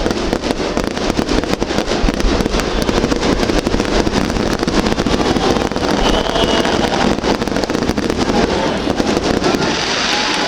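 Fireworks display: a dense, unbroken barrage of rapid bangs and crackles.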